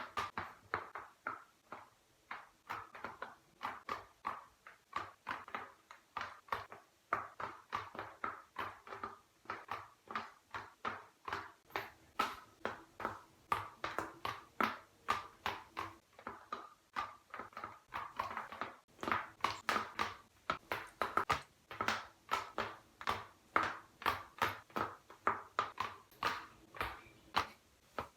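A neck crunching and clicking over and over: short crunchy clicks, about two to three a second.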